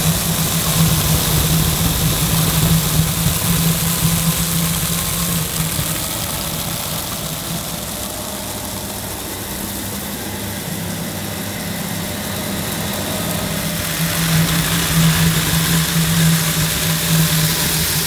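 Sebo K1 Komfort 1800-watt cylinder vacuum cleaner running while its floor nozzle is pushed over carpet: a steady motor hum under a rush of suction air. The sound dips through the middle and swells again near the end.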